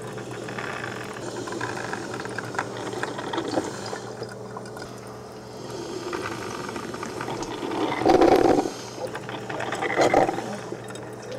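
Coffee grounds being scooped and poured into a paper filter in a drip coffee maker's basket, a dry rustling and scraping with small clicks. There are two louder pours about eight and ten seconds in.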